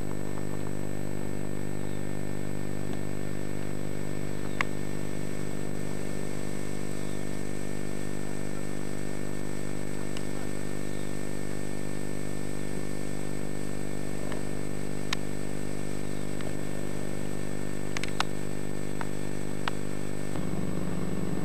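Steady machine hum at one constant pitch that never rises or falls, with a few faint clicks.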